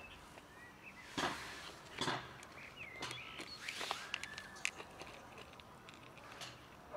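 Several cats eating from a small plastic food tub, with short bursts of wet chewing and lapping. A few faint high chirps are also heard.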